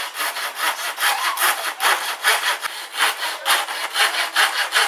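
Coping saw cutting through a small piece of plywood, a steady back-and-forth rasp of about four strokes a second.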